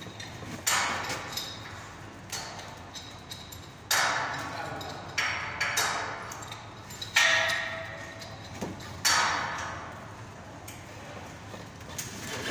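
Irregular sharp knocks and clanks, about eight of them, each ringing out and echoing in a large bare concrete space.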